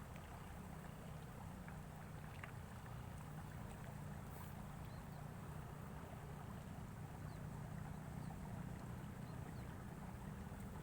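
Steady low outdoor rumble with a faint hiss, broken by a few faint, short high ticks.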